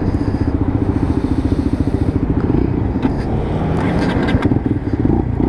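Motorcycle engine running at steady revs, its exhaust pulsing evenly, with a few short knocks or clicks about three and four seconds in.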